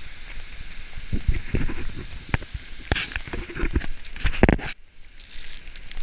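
Strong gusty wind buffeting the microphone in irregular low blasts over a steady high hiss of blowing snow and spray. It drops out abruptly for about half a second near the end.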